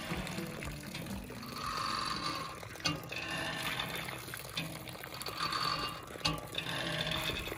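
Windmill-driven well pump sending water gushing from its outlet in pulses, roughly every three and a half seconds, each surge followed by a sharp knock.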